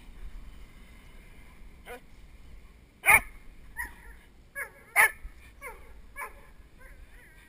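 Nine-month-old Doberman puppy barking and whining, worked up in drive as it lunges on the leash at a jute bite sleeve. Two loud barks come about two seconds apart, with several short, high whines falling in pitch between and after them.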